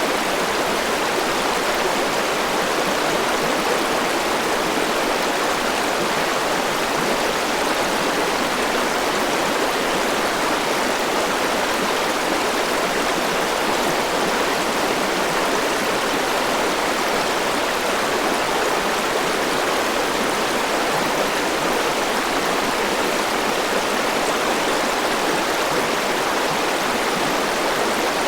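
Forest mountain river rushing over rocks: a steady, even water noise.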